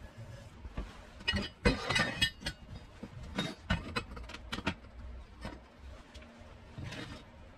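Square steel bars and a steel pipe of a homemade pump drill clinking and knocking against each other and the wooden workbench as they are handled into place. There are clusters of sharp knocks about a second in and between three and five seconds, and one more near the end.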